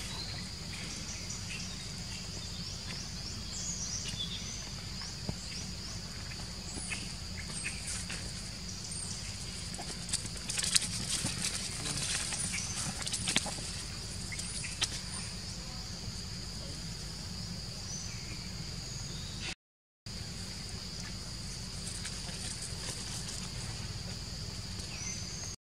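Insects droning at a steady high pitch over a low outdoor rumble, with a stretch of crackling rustles and patters about ten to fifteen seconds in as pig-tailed macaques scamper over dry leaf litter. The sound cuts out completely for a moment about twenty seconds in.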